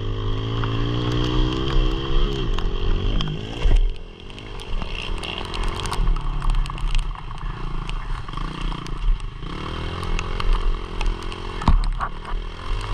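A pit bike's small single-cylinder engine revving hard, its pitch climbing and falling with throttle and gear changes, backing off between about 2.5 and 4 seconds in before pulling again. Rattles and clatter run through it, with one sharp knock near the end.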